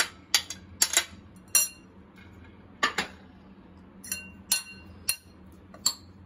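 Steel spoon stirring a chickpea, onion and coriander mix in a bowl, knocking and scraping against the bowl's sides: about a dozen irregular clinks with a short ring after each.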